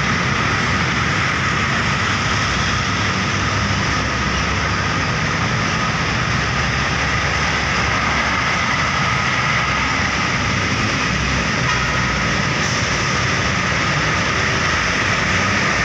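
Steady road traffic noise: buses and trucks running past, engines and tyres making an even, unbroken roar.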